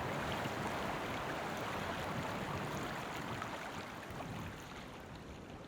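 Steady rushing of a river in flood, easing off a little near the end.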